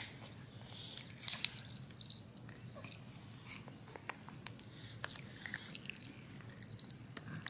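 Strawberry Pop Rocks popping candy crackling in a baby's mouth as she chews: irregular small clicks and pops, scattered throughout.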